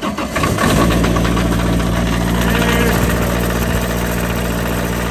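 Diesel engine of a pressure-washer rig, preheated with its glow plugs, finishing cranking on the starter and catching less than a second in, then settling into a steady, even run.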